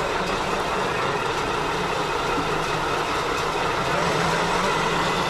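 Radio-controlled scale trucks and excavators running, a steady mechanical hum and hiss with no breaks.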